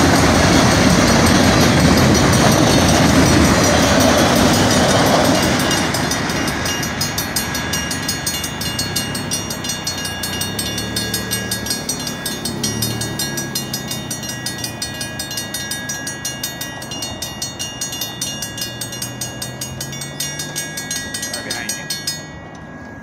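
Freight train's cars rumbling past a grade crossing, loud for about the first five seconds and then fading as the last car goes by. The crossing signal's bell keeps ringing with regular strikes and cuts off suddenly shortly before the end.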